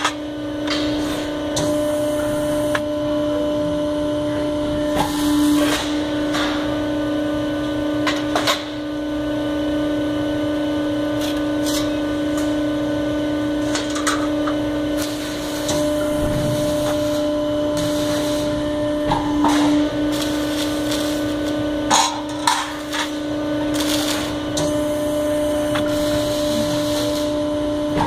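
CNC press brake running with a steady hum, with sheet-metal parts knocking and clanking against the machine now and then as they are fed in and bent.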